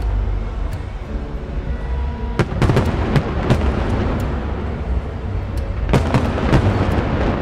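Fireworks display, aerial shells bursting in clusters of sharp cracks and bangs. A quick run of them comes about two and a half seconds in and another near six seconds, over a low rumble.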